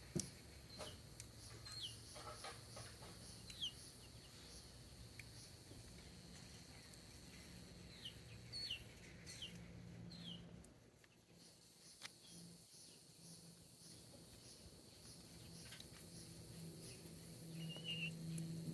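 Faint birds chirping, with short falling notes scattered through, along with a few light clicks.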